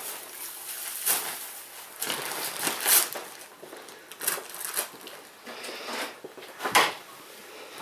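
Christmas wrapping paper being torn and crumpled by hand as a present is unwrapped: irregular rustling, ripping strokes, the loudest near the end.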